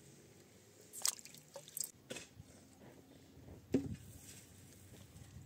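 A few short, separate wet squelching sounds and light knocks, spaced irregularly, the strongest about four seconds in.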